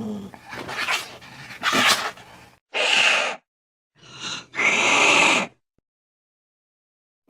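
Angry cat hissing: a low growl trails off at the start, then about five sharp hisses over roughly five seconds, after which the sound stops dead.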